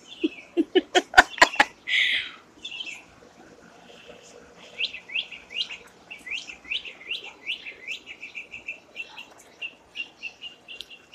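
A songbird singing a long series of repeated down-slurred whistles, about three a second, that quicken into a fast trill near the end. A quick run of loud knocks comes in the first second and a half.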